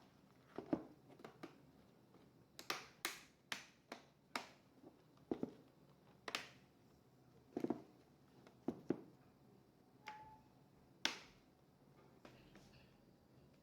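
A dozen or so sharp, irregular clicks and taps of hands working on a laptop's case and parts. A brief faint tone sounds about ten seconds in.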